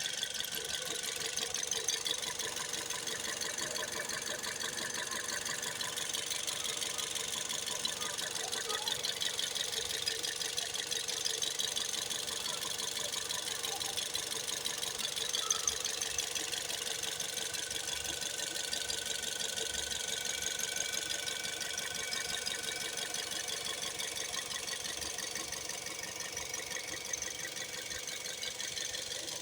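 Toyota Vios 1NZ-FE 1.5-litre four-cylinder engine running steadily with a fast, even ticking rattle: the engine knock and rattling noise the owner is demonstrating.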